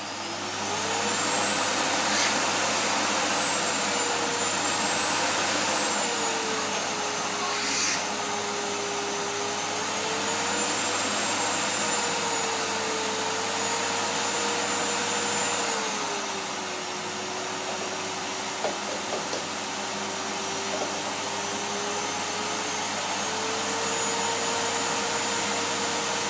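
Vacuum cleaner running, its motor climbing in pitch at the start and then wavering slowly up and down. A couple of short knocks come through, a few seconds in and again about eight seconds in.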